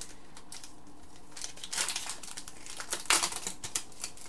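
Hockey card pack wrapper crinkling and rustling as a pack and its cards are handled, with louder crackles about two seconds in and again about three seconds in.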